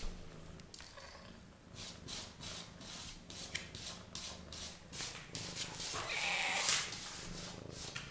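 A cat scraping in a litter box, raking the cat litter in a run of short scratching strokes, two or three a second, with a longer, louder scrape about six seconds in.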